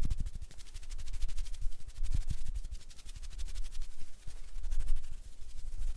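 Hand sounds close to a pair of ASMR microphones: a dense, crackly rustle, with soft low thumps as the hands move near the mics.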